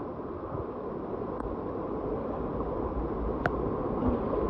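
Water rushing and sloshing in a narrow rock gorge, a steady wash of noise, with one sharp click about three and a half seconds in.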